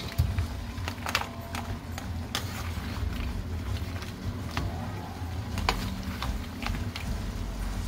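Seafood being stirred and tossed in a thick Cajun sauce: irregular clicks and clacks of shells and utensil knocking, over a low rumble of handling.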